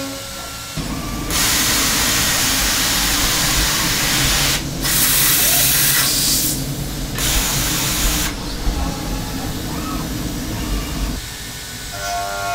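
Hermle C400 CNC machining centre changing tools: three long loud hissing blasts over a steady mechanical rumble, typical of the air blast that cleans the spindle during a tool change. Near the end a steady whine starts as a 16 mm seven-flute finishing cutter spins at 6000 rpm and begins dry-cutting aluminium.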